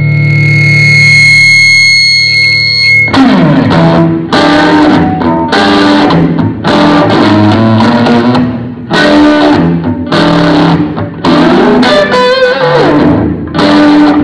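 Amplified guitar through a stage amp. A steady held tone over a low hum rings for about three seconds, then loud chords are struck roughly once a second, with a bent, wavering passage near the end.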